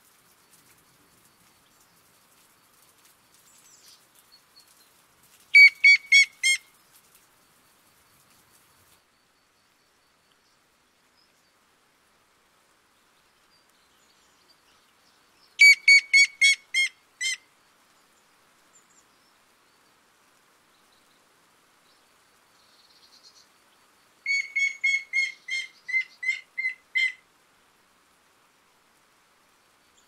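Grey-headed woodpecker singing three separate runs of clear, evenly spaced whistled notes. The first two runs are short and fade away. The last, longer run of about ten notes comes near the end and drops slightly in pitch.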